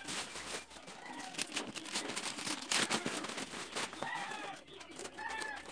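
Two short animal calls, each rising then falling in pitch, one about four seconds in and one near the end, over a run of clicks and rustling.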